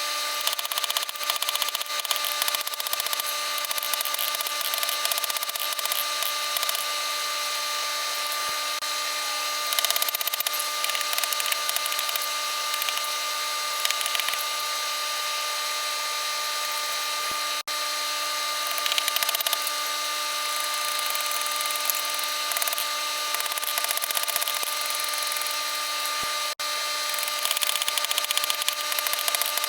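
Electric grinder running with a steady motor hum while a steel hardy tool is ground against it, the rough grinding hiss rising and falling as the steel is pressed on and eased off. This is the hardy's cutting edge being sharpened.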